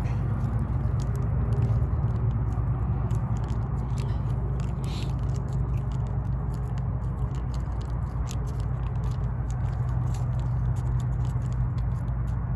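A spoon stirring and scraping watery instant mac and cheese, with many small wet clicks and scrapes, over a steady low hum.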